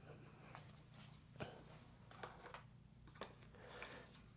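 Near silence with a few faint, scattered clicks of a small metal bolt and parts being handled while a bolt is test-fitted into a master cylinder clamp.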